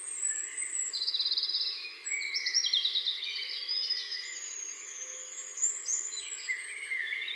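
Several songbirds chirping and calling over one another, with quick trills about a second in and again between two and three seconds.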